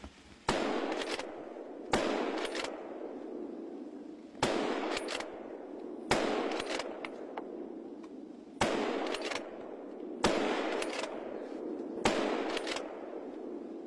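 Seven rifle shots at irregular intervals of roughly one and a half to two and a half seconds. Each crack is followed by a few fainter reports and a long rolling echo through the woods.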